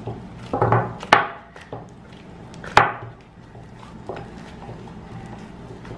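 Hands kneading soft margarine-and-cornstarch slime in a glass bowl: squishing and slapping with a few sharp smacks, the loudest about a second in and near three seconds.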